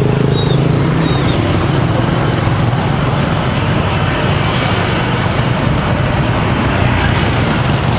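Steady road traffic at a busy intersection: a continuous mix of engines and tyre noise from passing vehicles, with a low engine hum underneath.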